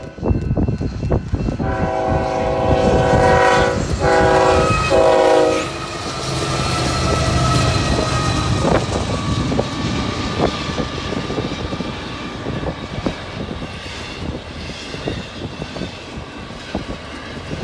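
Diesel freight locomotive's multi-chime air horn sounding three blasts, a long one then two short, as the train approaches. The lead locomotive then passes with a low engine drone, followed by the steady rumble and rapid clicking of the train's wheels over the rails.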